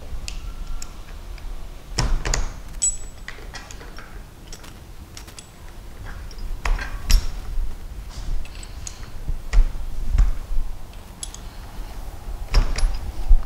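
Irregular metal clicks and knocks of a chuck key working a hammer drill's geared chuck, tightening a drill bit in its jaws. A few clicks carry a short metallic ping.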